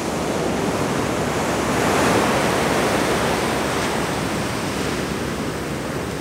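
Ocean surf breaking and washing up the sand in a steady rush, swelling a little louder about two seconds in.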